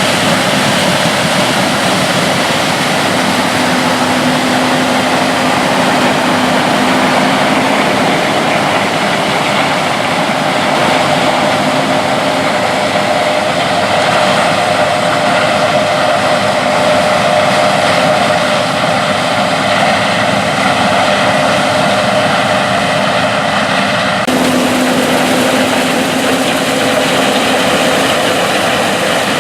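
John Deere S690 combine harvester running while harvesting corn: a loud, steady mechanical drone with a constant hum. The sound shifts abruptly about 24 seconds in.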